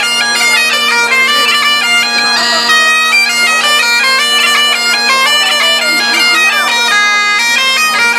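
Great Highland bagpipe played solo: a steady drone under a chanter melody that moves quickly from note to note.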